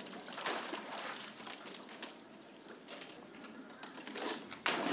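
Water splashing and dripping as rhesus macaques clamber through a shallow pool and onto rocks, in irregular sloshes, with a sharp, louder splash near the end.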